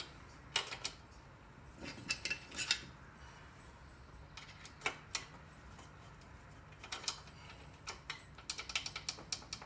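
Hand tools and small metal engine parts clinking and clicking during reassembly of a small engine, in a string of light, irregular knocks.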